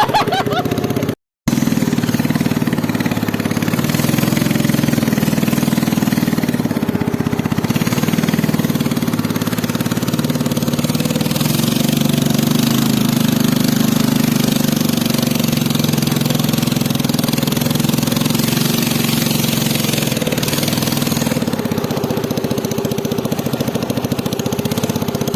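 A small engine running steadily at an even speed, with a brief dropout about a second in.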